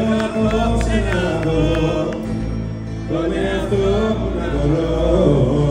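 Live Greek laïko band music with singing over a steady, heavy bass.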